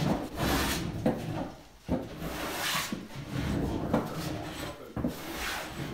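Repeated scraping strokes, about one a second, each a hiss with a low rumble under it.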